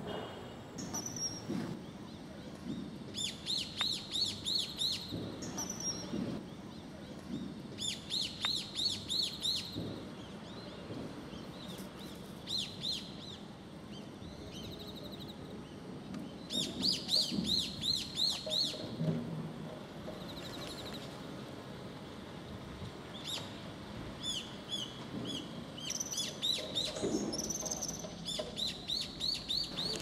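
Common kingfisher calling: runs of rapid, shrill, high piping notes, each run a second or more long, repeated about six times, as in a territorial dispute or a parent driving off a grown young bird.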